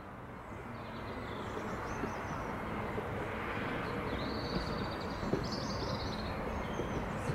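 Rumble of an electric multiple-unit train, growing louder over the first few seconds and then holding steady.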